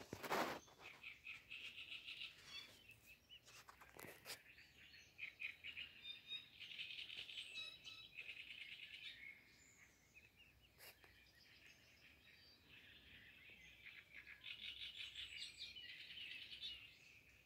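A small songbird sings long runs of fast repeated notes, pausing between them. A few short knocks sound, the loudest near the start, another about four seconds in.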